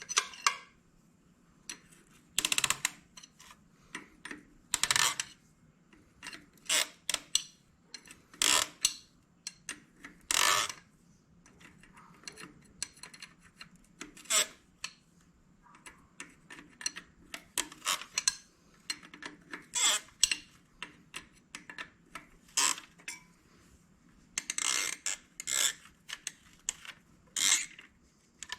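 Metal tools and parts being handled, clinking and clattering irregularly, some clatters lasting about half a second.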